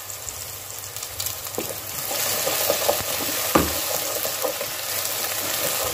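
Chopped onions sizzling in oil in a frying pan as they brown. About two seconds in the sizzle grows louder as a wooden spoon stirs them, with a few light knocks of the spoon against the pan.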